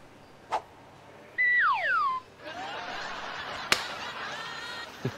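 A loud falling whistle, then a hissing, shimmering noise with faint rising tones and one sharp click in the middle, like comedy sound effects.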